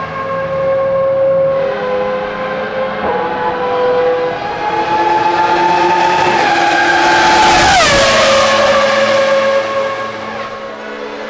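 Ferrari Formula 1 car running at high revs, its engine note climbing in steps through gear changes. It passes close by about eight seconds in, loudest there, with a sharp drop in pitch.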